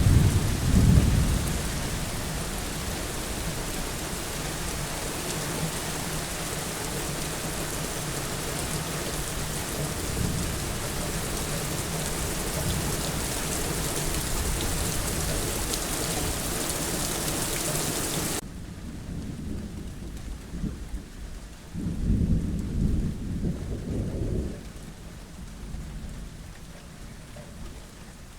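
Heavy steady rain with thunder rumbling at the start and again about 22 seconds in. The loud rain hiss stops abruptly about two-thirds of the way through, leaving fainter rain.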